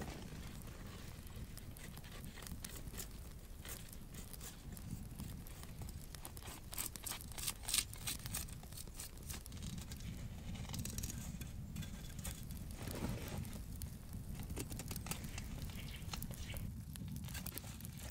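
Knife shaving a stick of firewood into thin curls for kindling: a run of short scraping, crackling strokes, loudest in a cluster about eight seconds in.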